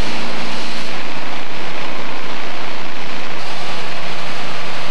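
Steady, loud rushing hiss of water spraying as flood mud is washed out.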